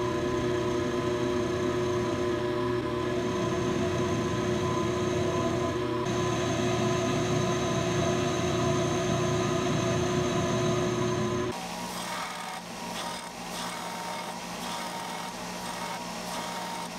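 Milling machine running with its end mill spinning, a steady motor whine with several steady tones. About eleven seconds in it gives way abruptly to a quieter belt sander running, used to deburr a small steel bolt.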